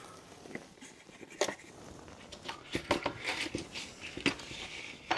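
Irregular light clicks and taps of small metal parts being handled: copper cable lug terminals and the crimping tool picked up and turned over.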